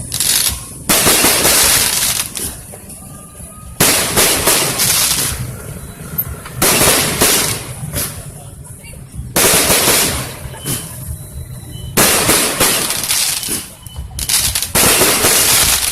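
Fireworks going off in a repeated series: a sudden loud burst about every three seconds, each followed by a crackling tail that fades over a second or two.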